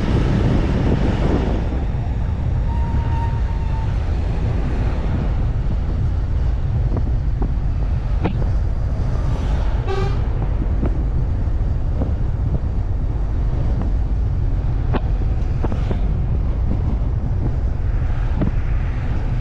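Steady road and wind rumble while travelling along a street in traffic, with a brief vehicle horn toot about ten seconds in and a shorter tone near three seconds.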